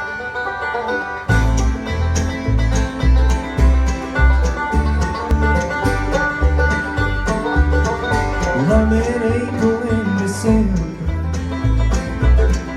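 Live bluegrass band playing an instrumental intro: fast banjo picking and guitar over a steady low beat. The full band comes in about a second in.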